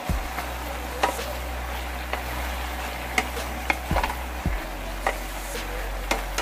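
Beef and Chinese kale stir-frying in a non-stick frying pan: a steady sizzle, with irregular knocks and scrapes of a wooden spatula against the pan as it is stirred. A low steady hum runs underneath.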